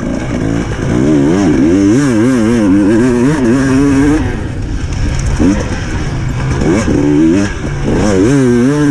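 300cc two-stroke enduro motorcycle engine revving hard under full throttle, its pitch wavering rapidly up and down. The revs drop back for a few seconds in the middle, then climb again near the end.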